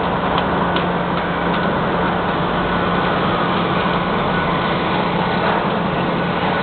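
Mobile crane's diesel engine running steadily with a low hum while holding a suspended steel column. A few light clicks sound in the first couple of seconds.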